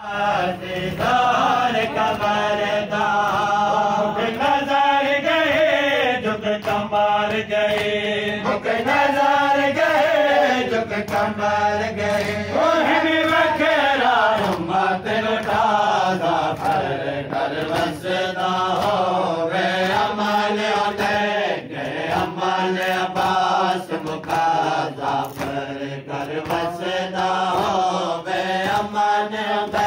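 A man's voice chanting a Muharram lament (noha) in long, rising and falling melodic phrases, with repeated sharp slaps under it, typical of mourners' chest-beating (matam).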